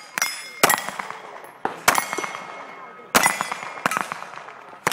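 Handgun shots at steel plate targets, each sharp crack followed by the clang and ring of the struck steel. About six shots, unevenly spaced from half a second to over a second apart.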